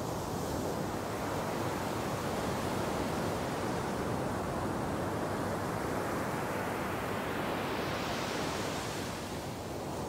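Ocean surf breaking and washing up the beach: a continuous rushing of water, its hiss swelling brighter about three-quarters of the way in as another wave breaks, then easing off.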